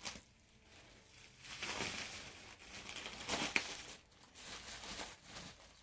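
Plastic wrap and bubble wrap crinkling and rustling in irregular bursts as a wrapped package is pulled open by hand, with a short knock at the very start.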